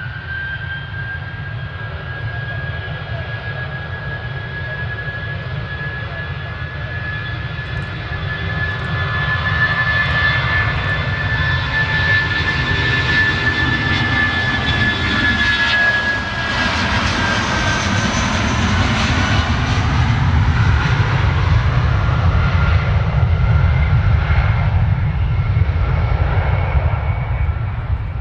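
Jet airliner's engines passing close by: a steady high whine over a low rumble that grows louder, with the whine dropping in pitch about two-thirds of the way through as the aircraft goes past.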